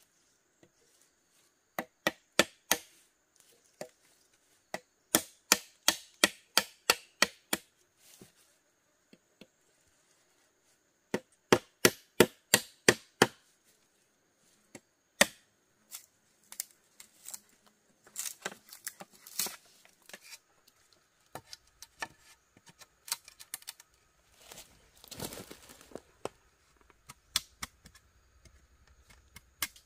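A blade chopping bamboo in quick runs of sharp strikes, about three to four a second, with lighter scattered knocks and rustling in the second half.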